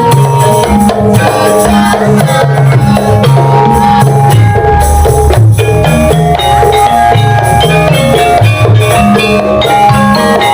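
Javanese gamelan ensemble playing, with ringing bronze metallophone and gong-chime tones over kendang drum strokes in a jaipong-style rhythm.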